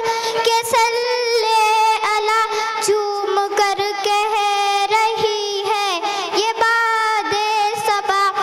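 A young girl singing a naat solo into a microphone, holding long wavering notes and sliding through ornamented turns.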